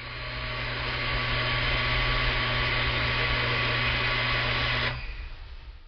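Pentax electric water pump running steadily with a motor hum and whoosh, then shutting off about five seconds in and quickly winding down: the pump cutting out at its set-point pressure.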